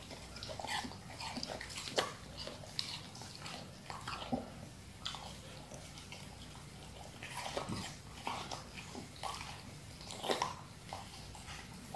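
Siberian husky licking and chewing watermelon flesh from a hollowed half rind: irregular smacking and mouth clicks, with a louder smack about two seconds in and another near the end.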